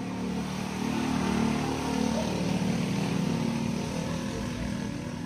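A motor vehicle's engine running as it passes by, swelling about a second in and fading near the end.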